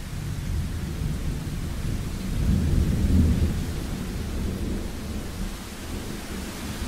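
Thunder rumbling over steady rain. The deep rumble swells, is loudest about halfway through, then slowly eases off while the rain hiss carries on.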